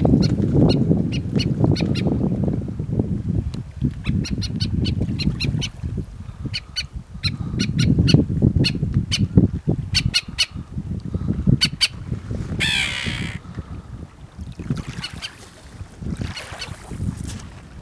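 Skuas calling: several runs of short, sharp, repeated notes over a low rumbling noise. A brief hissing rustle comes about two-thirds of the way in.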